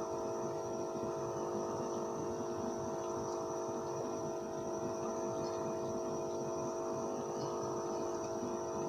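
Steady electrical hum made of several held tones, even in level throughout, with no speech over it.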